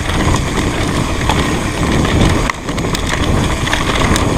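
Mountain bike rolling fast over a rough trail: steady rumble of tyres on dirt and rock with wind on the microphone, and rattling clicks from the bike, dipping briefly about halfway through.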